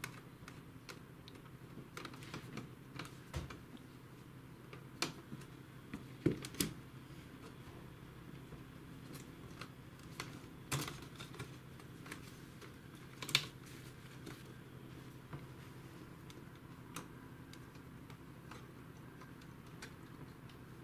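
Scattered light clicks and taps of a small screwdriver and fingers on a laptop's plastic case and metal hinge as a screw is undone and the part worked loose, the sharpest about five, six and a half, eleven and thirteen seconds in. A faint steady low hum sits underneath.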